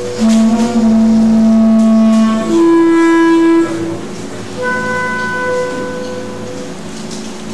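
Clarinet playing slow, long-held notes in free improvisation. A low note is held for about two seconds, then a higher note for about a second, and after a short gap a softer high note fades out.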